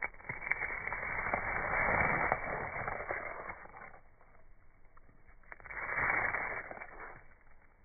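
Fingers brushing through moss stalks and spore capsules: a muffled rustling with small clicks that swells twice, once starting just after the beginning and again around six seconds in.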